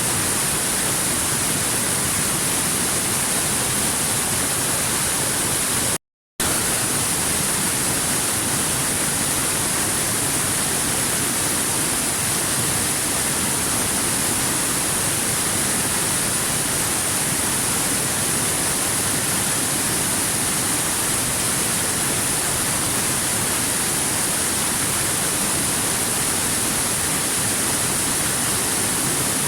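Steady rushing roar of a waterfall, an even unbroken wash of water noise. It cuts out to total silence for about half a second, about six seconds in, then resumes unchanged.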